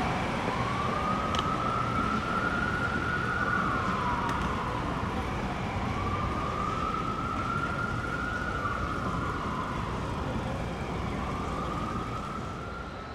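Emergency vehicle siren wailing in a slow rise and fall, three cycles about five seconds apart, over steady city street traffic noise.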